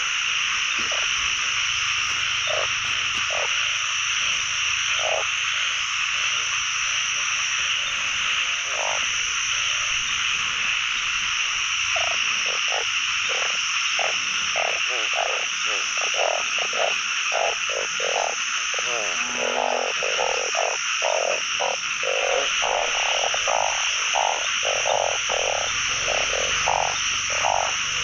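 Pond chorus of calling frogs, narrow-mouthed frogs (อึ่ง) among them. A dense steady high-pitched chorus runs throughout, with short low croaks that grow much more frequent from about halfway through.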